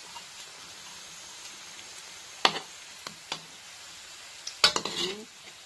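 Banana halves sizzling in hot oil in a frying pan, a steady hiss, with a metal utensil clacking against the pan a few times about halfway through and again in a louder cluster near the end.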